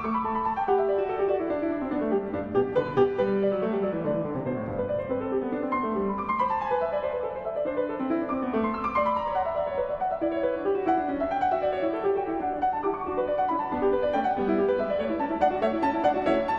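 Solo classical piano played on a concert grand: a busy passage of fast notes, with several runs sweeping downward.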